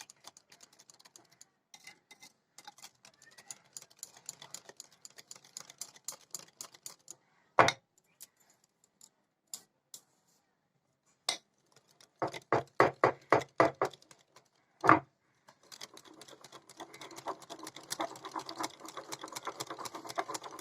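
Butter, sugar and egg batter being beaten by hand in a mixing bowl: a utensil clicks and scrapes rapidly against the bowl. There are a few loud knocks and, midway, a quick run of sharp ringing taps.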